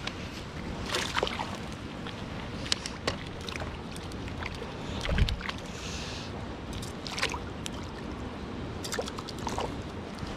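Water splashing and sloshing, with scattered short clicks, over a steady low rumble. A dull thump comes about five seconds in, followed by a brief hiss.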